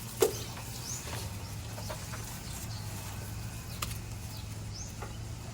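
Small birds chirping now and then in short, high calls, with a single sharp knock just after the start and a steady low hum underneath.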